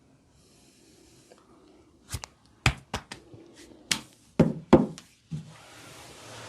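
Hands striking a person's body during a massage: about nine sharp knocks and slaps in an irregular run, some with a dull low thud, followed by a soft hiss near the end.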